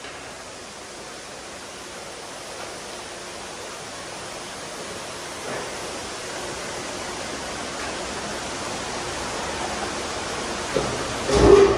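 Steady rushing hiss of a Mark VII AquaJet touchless car wash spraying water, slowly growing louder. A knock and a brief louder surge come near the end.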